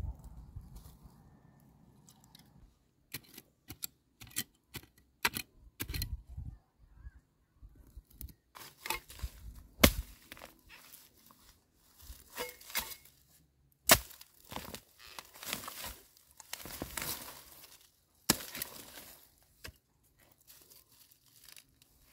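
Hand digging for a wild tuber with a hoe in dry soil and dead grass: scattered crackling and tearing of dry stems and roots, and soil being scraped and pulled by hand. There are a few sharp knocks of the hoe, the loudest about ten and fourteen seconds in, and a denser stretch of rustling just after.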